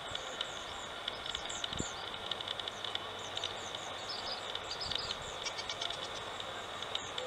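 Distant diesel locomotive hauling a passenger train, heard as a faint steady rumble under insects chirping in quick pulses and short bird calls.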